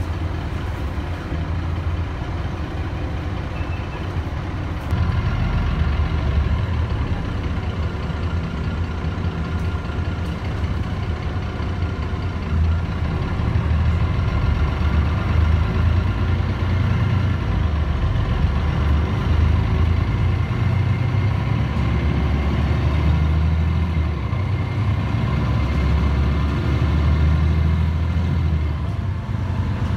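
Mercedes-Benz Citaro city bus heard from inside the cabin, its diesel engine and Voith automatic gearbox running loudly as it drives, a low rumble with a steady high whine over it. It gets louder about five seconds in and stays so.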